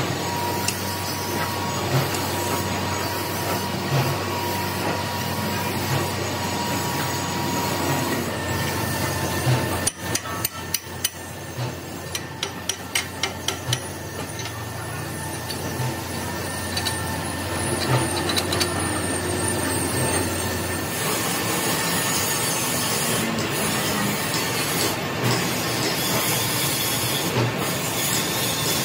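Machine-shop din with a low machine hum that stops about two-thirds of the way through. About ten seconds in comes a quick run of sharp metal clicks and knocks, from a spanner and tools worked at the hub of a large cast gear being fastened on a lathe.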